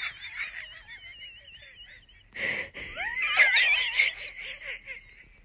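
A person's high-pitched, wheezing laughter in wavering squeals, with a sharp intake of breath about two and a half seconds in.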